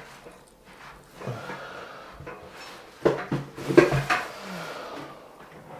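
Clattering knocks of hard parts being handled and set against each other. They come in a cluster about three to four seconds in, after a softer rustle earlier.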